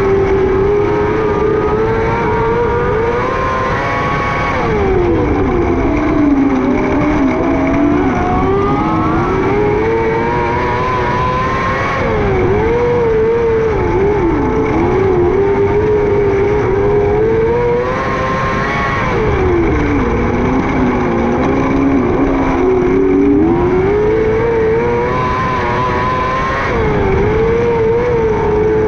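A 600cc micro sprint car's motorcycle engine at racing speed, its pitch dropping and rising again about every seven seconds as the driver lifts for the turns and accelerates down the straights of a short dirt oval, about four times.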